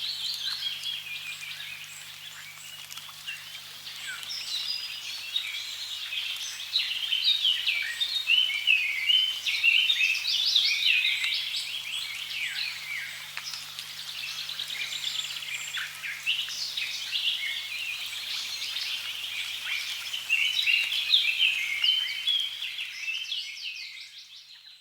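A dense chorus of many small birds chirping and trilling over one another, over a faint steady background hiss. It fades out near the end.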